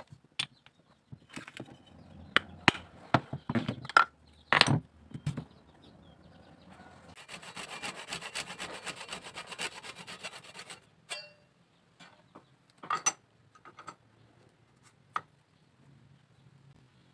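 Sharp knocks and clacks as a metal ring form and tools are handled on a workbench in the first five seconds. Then a fine-toothed backsaw cuts through a thin wooden ring clamped in a vise, a rapid rasping for about three and a half seconds, slicing it into thinner rings. A few light taps follow.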